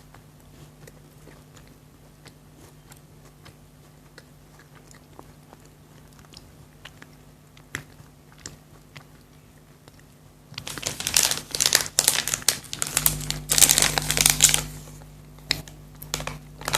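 Soft chewing with faint mouth clicks for about ten seconds, then a chocolate's crinkly wrapper is handled and torn open in loud, rapid crinkling bursts for several seconds.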